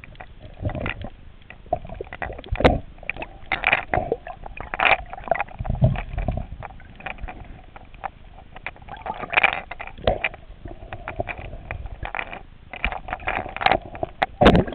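Water sloshing and gurgling around a microphone at or under the water surface while snorkeling, with many irregular clicks and knocks and a few low thumps.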